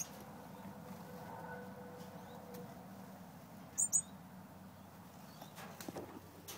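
Two quick high chirps from a finch, close together about four seconds in, over a faint steady hum.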